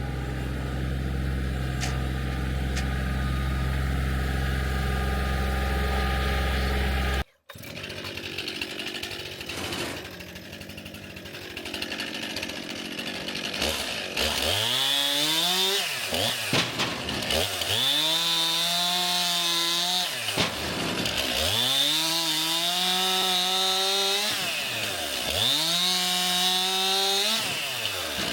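STIHL MS 261 two-stroke chainsaw bucking logs. Its engine revs up into each cut, holds while cutting, and drops back, several times in a row through the second half. The opening seconds hold a steady low engine hum, cut off abruptly.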